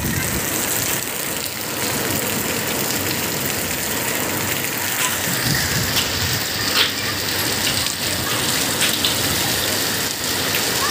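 Heavy rain pouring down, a steady dense hiss of rain hitting the ground.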